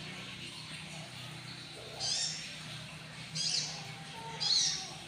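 A caged konin songbird giving short, high, twittering song phrases, three of them: about two seconds in, around three and a half seconds, and near the end. A steady low hum runs underneath.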